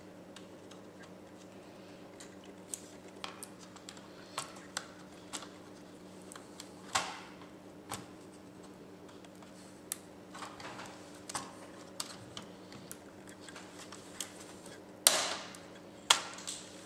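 Scattered light clicks and knocks of an HP Pavilion laptop motherboard and plastic base being handled and pressed into place, with a louder knock about fifteen seconds in. A faint steady hum underneath.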